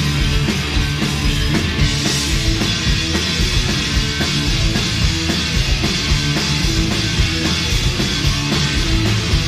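Live punk rock band playing loud: distorted electric guitars, bass and a drum kit in an instrumental passage. The cymbals grow louder about two seconds in.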